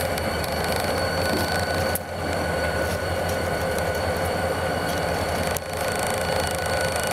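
Two EMD GP40 diesel-electric locomotives running as they roll slowly past, a steady engine drone with a steady high whine over it.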